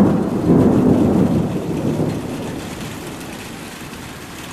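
A rolling rumble of thunder, loudest in the first two seconds and dying away by about three seconds in, over a steady hiss of rain.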